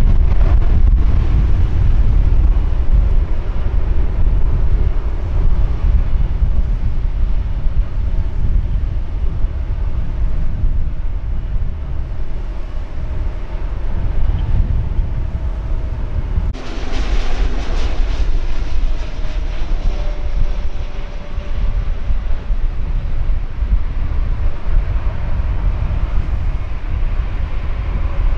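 Boeing 737 jet airliner on final approach and landing, its engines a steady rumble with a faint whine, under heavy wind rumble and buffeting on the microphone. Just past the middle, a louder rush of noise lasts a couple of seconds.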